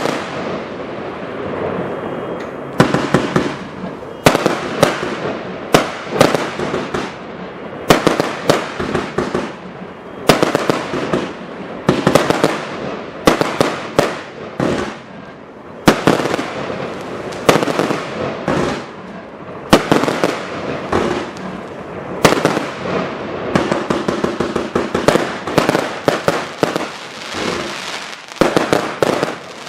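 Shayki's 'Destruction' 320-shot firework cake firing continuously: rapid shots and bursts overlapping with crackling, with loud bangs every second or two.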